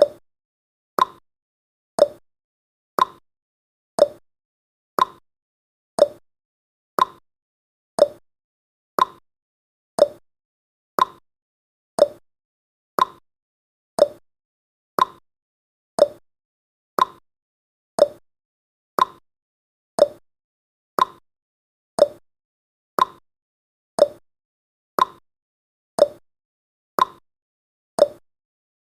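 Countdown timer's clock-tick sound effect, one short tick each second with silence in between.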